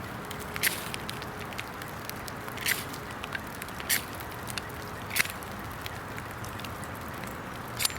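Flint and steel being struck, several sharp scraping strikes at irregular intervals of a second or more, over a steady hiss.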